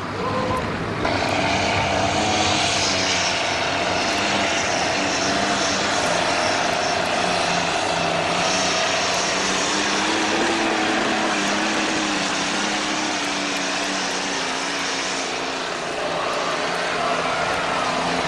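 Pulling tractor's engine running flat out as it drags a weight-transfer sled, loud and steady with a held engine note. It eases off about three seconds before the end.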